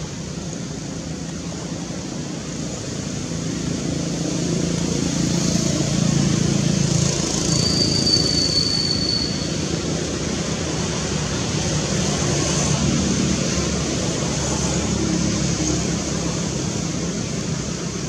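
Low rumble of road traffic that swells for several seconds in the middle as a vehicle goes by, over a steady high hiss; a brief thin high whistle sounds once near the middle.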